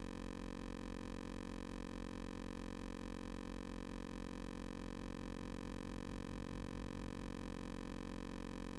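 Steady electrical hum with a buzzing stack of overtones, unchanging throughout: noise on the audio track of an analog FPV video recording rather than any sound from the flight.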